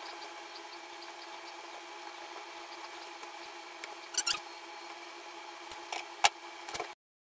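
Rustles and sharp clicks as a stiff crinoline-and-fabric bow is handled and tacked with needle and thread: one burst about four seconds in and a few more near the end, over a steady hum. The sound cuts off suddenly just before the end.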